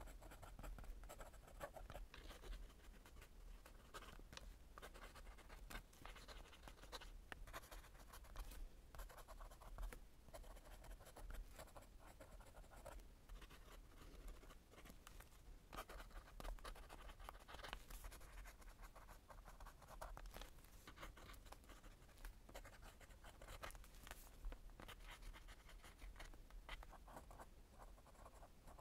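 Lamy fountain pen nib scratching faintly across journal paper in irregular short strokes as cursive handwriting is written.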